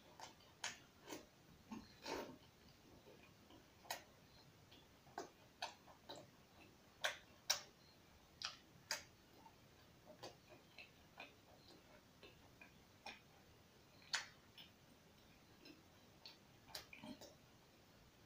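A person chewing roti and chicken curry eaten by hand: irregular smacking clicks of the lips and mouth, the loudest ones near the middle and about three-quarters through.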